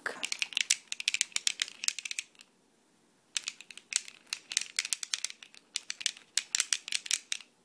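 A baby's toy being shaken, rattling with rapid clicks in two bouts with a short pause between them.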